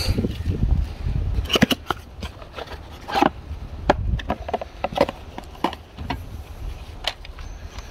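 Handling noises in a cardboard shipping box: scattered short knocks and taps of a plastic battery pack and mower parts being moved and set down, with some rubbing against cardboard. A low rumble sounds in the first second or so.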